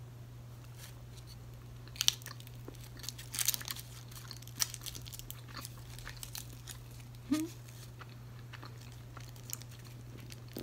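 A Jet chocolate bar being bitten and chewed: a few sharp crunches and clicks, bunched in the first half, over a steady low hum.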